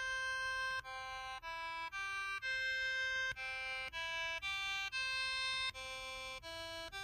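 KTF-TR2000 mobile phone's keypad button tones: a run of electronic beeps, each a steady pitched note of about half a second, stepping from pitch to pitch like a simple tune.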